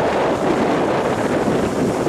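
Rough surf breaking and washing up a sandy beach, with strong wind buffeting the microphone: a steady, dense rush of noise.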